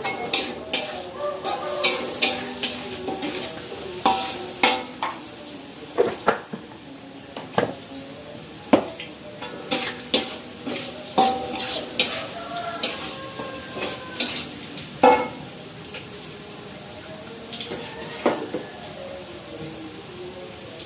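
Metal spatula scraping and clanking against a steel wok in irregular strokes as food is stir-fried over a gas flame, over a steady sizzle of frying.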